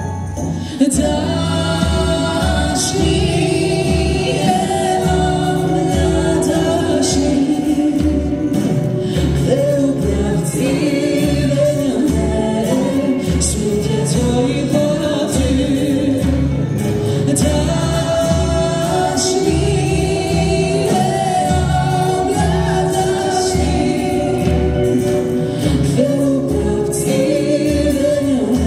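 Male and female singers performing a pop duet live, backed by an orchestra with violins, drum kit and keyboard playing to a steady beat.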